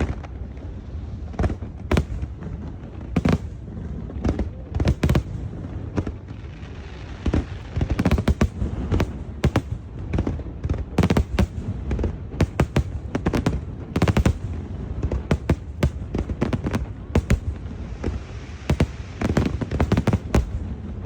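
Aerial fireworks going off: a rapid, irregular series of sharp bangs and pops that come thickest in the middle and near the end.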